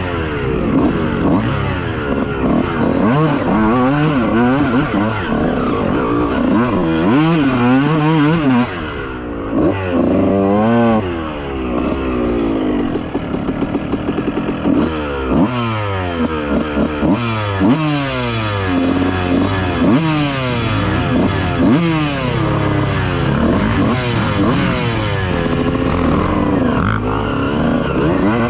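Dirt bike engine revving hard, its pitch climbing and dropping again and again, each rise and fall lasting about a second or two.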